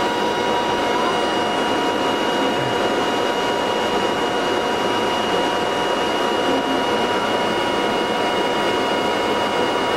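Ampex AVR-1 two-inch quadruplex videotape machine running in playback: a steady mechanical running noise with a few steady high-pitched tones through it.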